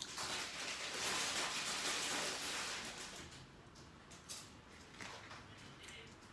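Eating at a table: a few light clicks of a utensil against a small bowl, with chewing. A rushing hiss swells and fades over the first three seconds and is the loudest sound.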